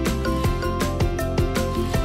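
Upbeat outro music with a steady beat.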